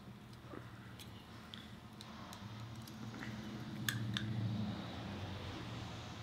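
Faint scattered clicks and taps of small plastic model-kit parts being handled and pressed together, over a low steady background hum.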